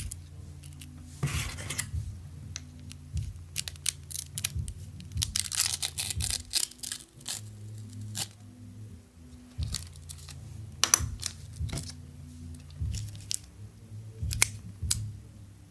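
Sharp plastic clicks and short scraping, tearing-like rasps from a Lenovo laptop being taken apart by hand to replace its battery, over background music with steady low notes.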